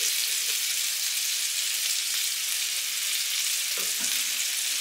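Frikadellen (beef meat patties) sizzling in butter and oil in a frying pan: a steady hiss.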